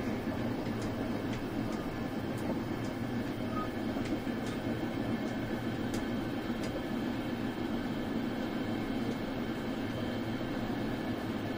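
Passenger train running at speed, heard from inside the carriage: a steady rumble of wheels on the rails, with scattered faint clicks at uneven intervals.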